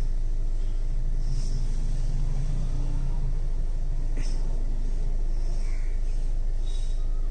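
Steady low rumble of a Kia Seltos 1.5-litre diesel engine idling, heard inside the car's cabin.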